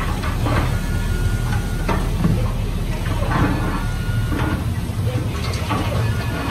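Heavy diesel earthmoving machinery running steadily, with brief high metallic squeals and short clanks over the low engine sound.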